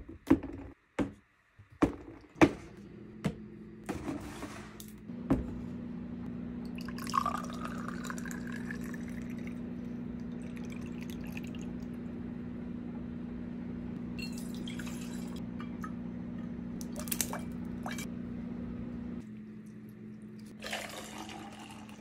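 Bottles knocked down onto a tiled counter, then liquid poured into a glass, the pitch rising as it fills, over a steady low hum. Near the end, water is poured from a mug into a metal tumbler.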